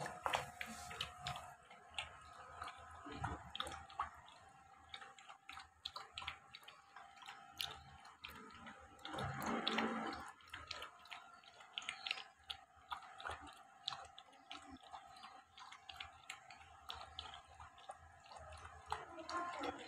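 Bully kutta puppy lapping milk from a bowl: quick, irregular wet clicks and slurps. There is a louder scuffling noise about nine to ten seconds in.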